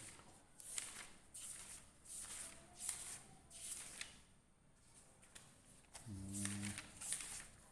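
A series of short, soft rustles, like paper being handled, comes roughly every half second to a second. A brief low hum of a voice comes about six seconds in.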